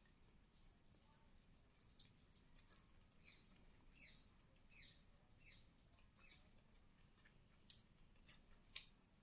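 Near silence, with faint chewing and mouth clicks from eating rice and chicken adobo by hand. A run of four short, faint falling chirps comes in the middle, and two sharper clicks come near the end.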